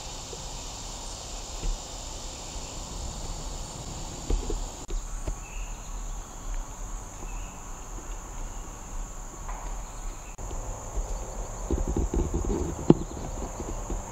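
Insects singing in woodland: a steady high-pitched drone. Near the end there is a cluster of low thumps and rustles, topped by a sharp click.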